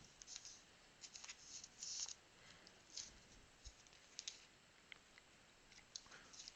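Faint, scattered clicks and rustles of trading cards being handled and sorted, with a brief rustle about two seconds in.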